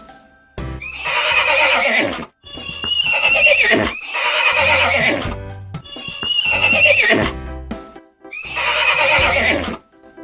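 Horse neighing: five loud whinnies in a row, each about a second and a half long, high and wavering, with the pitch dropping away at the end.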